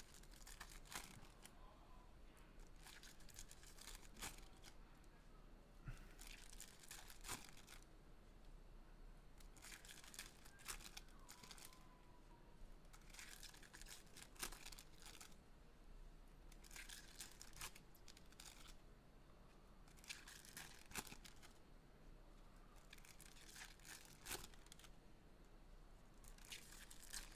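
Foil trading-card pack wrappers being torn open and crinkled, faintly, in short bursts every few seconds.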